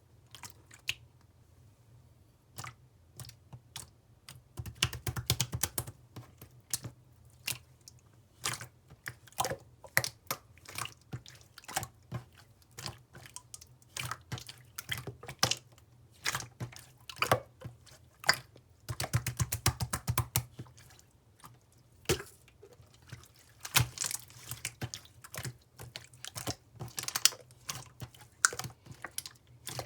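Purple jelly slime being squished and pressed by hand, giving off a steady stream of sharp wet clicks and pops. There are dense rapid crackling runs about five seconds in and again around twenty seconds.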